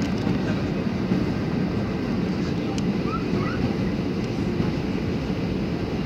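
Steady rushing cabin noise of a jet airliner heard from a window seat, the engines and airflow over the fuselage blending into one even low noise as the plane descends on approach to land.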